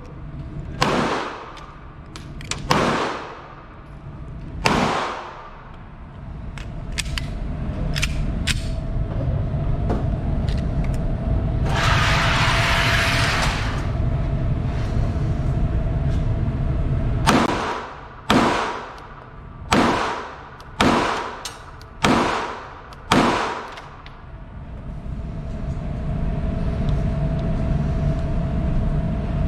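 Handgun shots echoing across a range: three shots about two seconds apart, then after a pause a string of six shots about a second apart, each with a long fading echo. A steady low rumble runs underneath.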